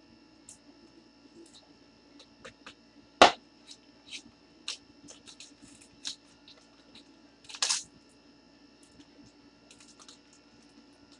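Scattered light clicks and ticks over a faint steady hum, with one sharp knock about three seconds in and a brief crackle between seven and eight seconds.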